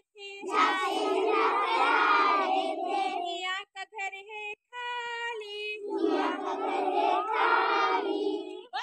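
A group of young children singing a Hindi alphabet action song in unison, call-and-response: a single voice sings a short line and the children sing back together, twice.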